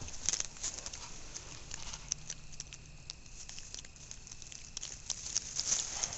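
Mini pig rooting and stepping through garden mulch: a run of irregular crackles, rustles and clicks as soil and bark are pushed about.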